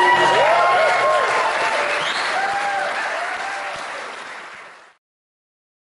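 Audience applauding, with cheering voices over the clapping, fading out and cutting off about five seconds in.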